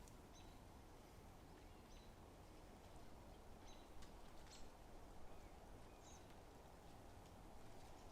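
Faint, scattered bird chirps, short and high, about half a dozen over quiet outdoor ambience.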